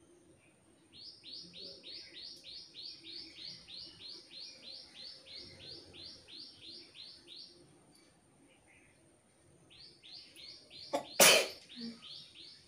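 A bird calling a long, fast series of short, high, downward-sliding notes, about three or four a second, pausing and then starting again. Near the end one loud, sudden sneeze cuts across the calls.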